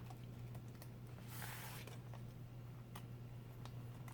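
Faint handling noises of a laptop screen being worked on by hand: a few light clicks and a brief rustle about a second and a half in, over a steady low hum.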